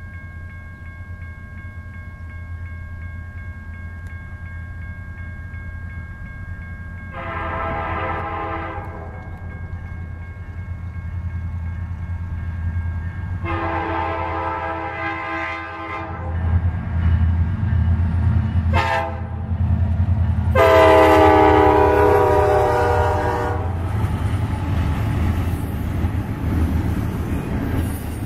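Union Pacific EMD SD70ACe lead locomotive sounding its air horn in the long-long-short-long pattern used at grade crossings: two long blasts, a short one and a final long one, the last the loudest. Under it, the low rumble of the diesel locomotives grows louder as they come close and pass, giving way near the end to the rolling rumble of double-stack container cars.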